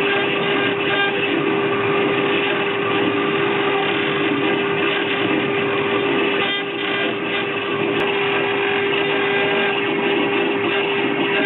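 CNC router running, its spindle giving a steady tone over a dense, even cutting noise, with a brief slight dip about two-thirds of the way through.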